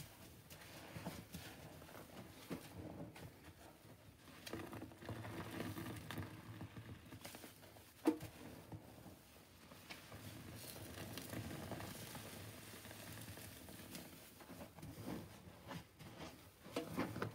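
Soft sponges squeezed and rubbed by hand in a sink of mouthwash suds: faint wet squishing with a fine crackle of popping foam. One sharp tap about eight seconds in.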